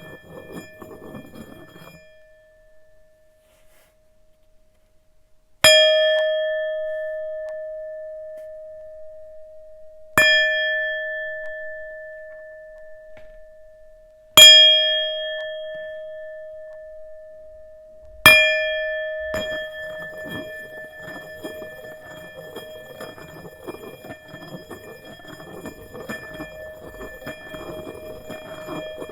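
Tibetan singing bowl struck four times, about four seconds apart, each strike ringing out in one clear tone with higher overtones and slowly fading. After the last strike the tone keeps sounding steadily under a faint rubbing noise.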